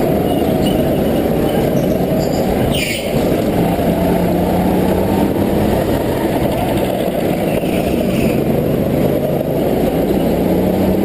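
Go-kart engine heard from onboard, running hard around the track, its pitch shifting up and down with the throttle through the corners, with the engines of other karts close by mixed in.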